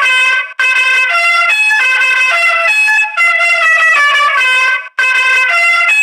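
Electronic sound-chip melody played loud through a loudspeaker: a buzzy, brass-like tune of stepping notes with two short breaks, cutting off suddenly at the end.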